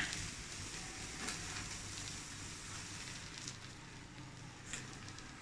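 Faint sizzle of rice and raw-mango coriander paste in a hot steel kadai as it is stirred with a ladle, slowly dying away, with a few light ticks of the ladle against the pan.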